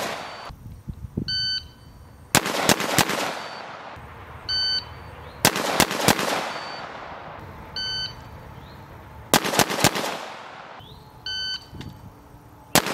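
Electronic shot timer beeping, each beep followed about a second later by a quick string of rifle shots, four times over: a timed ready-position drill with several rounds fired per start signal.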